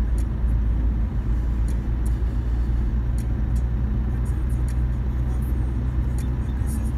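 Steady low rumble of a road vehicle on the move, engine and road noise, with light clicks or rattles now and then.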